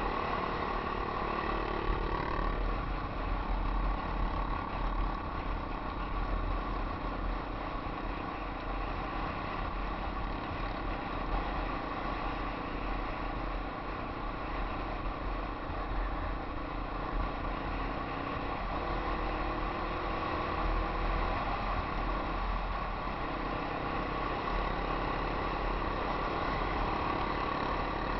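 Old Yamaha XT250 trail bikes' single-cylinder four-stroke engines running steadily while riding, with wind rumble on the helmet-mounted microphone.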